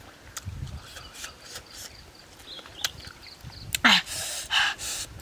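Close-up eating sounds of grilled fish: wet lip smacks and mouth clicks while chewing, with two louder sucking sounds near the end.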